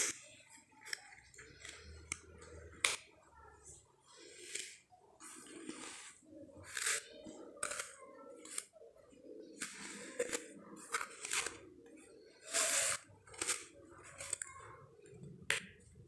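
Cardboard jigsaw puzzle pieces being picked up, slid across a paper sheet and pressed together: irregular light clicks, taps and rustles.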